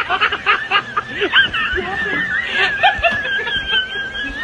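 People snickering and laughing in short bursts, heard over narrow, phone-like audio. A high, wavering tone holds through the second half.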